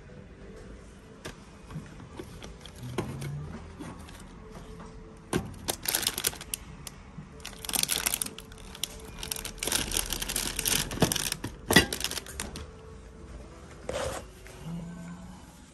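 Plastic food packaging crinkling and items knocking together as groceries are handled and shifted in a plastic shopping basket, in irregular bursts through the middle, with a few sharp clicks.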